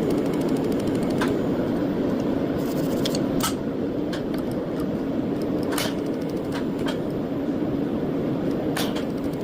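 Laser welding machine running with a steady hum, with irregular sharp clicks, about seven in all, scattered through it, typical of single laser pulses fired onto a watch case.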